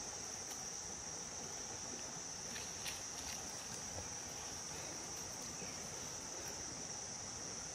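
Insects in the forest chirring steadily in one high, even tone over the rush of the stream, with a few faint ticks about three seconds in.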